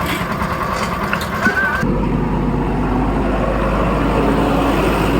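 Engine of road-construction machinery running steadily. About two seconds in, the sound switches abruptly to a deeper, steadier engine drone.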